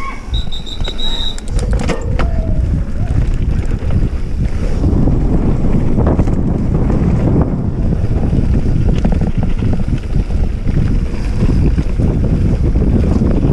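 Wind buffeting the microphone and knobby tyres rolling over a dirt trail as a mountain bike descends, with scattered clicks and knocks from the bike over bumps. A quick run of high beeps near the start.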